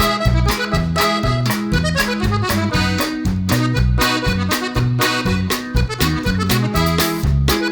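Music with a steady beat, a moving bass line and a reedy lead melody.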